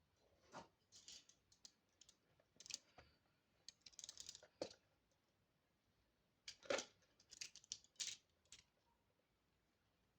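Toy packaging being handled and opened: scattered clicks, taps and short rustles in three clusters, with quiet gaps between them.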